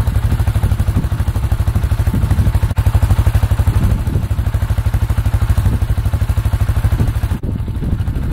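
A small engine idling with a fast, even, low pulse that stops right at the end.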